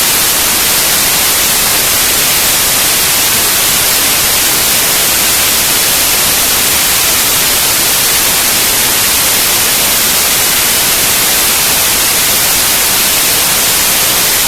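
Loud, steady hiss of static, like white noise, unchanging throughout; no engine or voice stands out of it.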